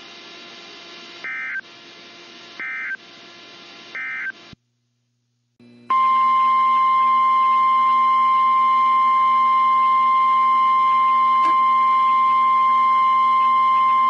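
Three short data bursts from a NOAA Weather Radio EAS broadcast, the end-of-message signal that closes an alert. After a brief gap, about six seconds in, the loud, steady Weather Radio warning alarm tone begins and holds.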